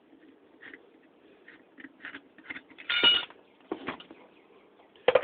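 Small metal clicks and taps from handling a dismantled bathroom faucet and its screws. About three seconds in there is one louder metallic clank with a brief ring, and a sharp knock comes near the end.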